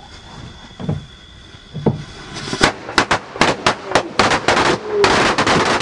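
Firework going off inside a closed pickup truck cab: after two dull thumps, a hissing spray of sparks starts about two seconds in, broken by a rapid string of sharp cracks and bangs.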